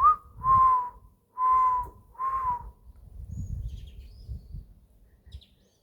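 A person whistling in imitation of a dove's coo: four short, breathy notes on one pitch, each falling slightly, in the first three seconds. Faint bird chirps follow.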